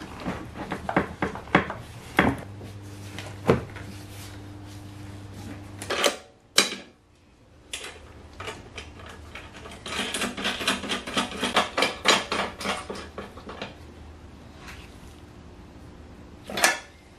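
Hand tools and metal parts clinking and knocking as fittings are worked on in a car's engine bay, with a dense run of rapid metallic clicks in the second half. A low steady hum runs for a few seconds starting about two seconds in.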